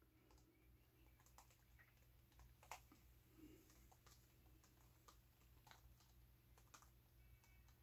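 Near silence: room tone with a few faint, scattered small clicks and taps, the clearest a little under three seconds in.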